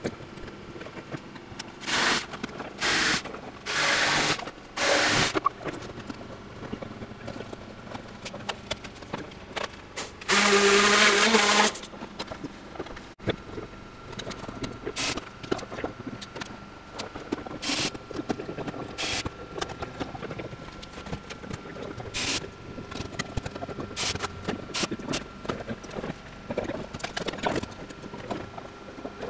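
Power drill run in four short bursts, then one longer, louder run of about a second with a steady motor hum, followed by many light clicks and handling noises of hand work on the body panels.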